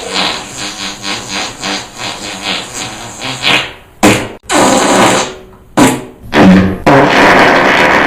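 Fart sound effects: a sputtering run of short puffs, about three a second, followed by a few longer, louder blasts, the last held for over a second.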